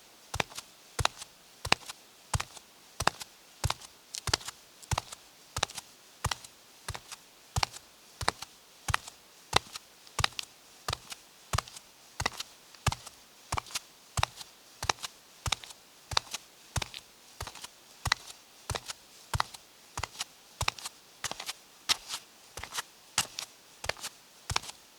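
A woman's bare feet walking on concrete: a steady run of sharp, slapping footsteps at about two steps a second.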